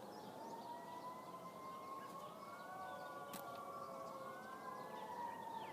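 Faint siren wailing, its pitch slowly rising and falling, with a few short bird chirps and a single click a little past halfway.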